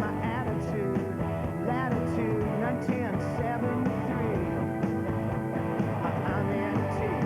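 Rock music playing as a soundtrack, with a steady beat and a wavering melodic line.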